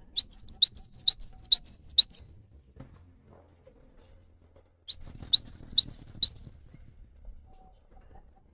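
Cinereous tit singing: two loud, high-pitched phrases of quickly repeated sharp notes, each lasting about two seconds, with a pause of a few seconds between them.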